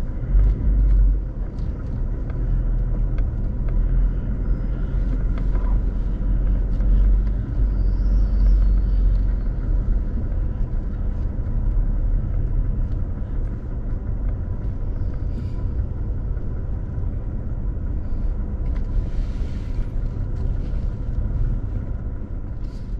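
A truck driving with a steady low rumble of engine and road noise, with a faint steady hum over it and a few light rattles.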